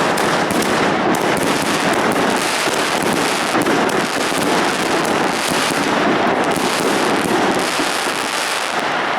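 Dense barrage of firecrackers and fireworks, countless rapid bangs and crackles running together into one continuous, unbroken din.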